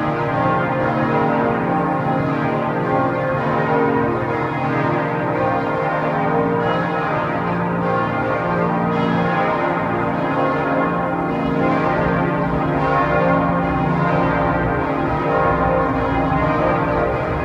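Church bells pealing: several bells ringing together without pause, their overlapping tones forming a continuous, even wash of sound.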